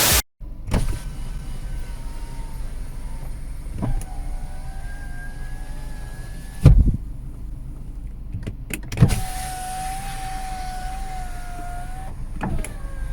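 Electric side-window motor of a Citroën C4 running the glass up and down several times with a steady hum and faint whine. There is a thump each time the glass reaches the end of its travel. No squeak is heard from the glass, whose rubber seals have just been wiped clean.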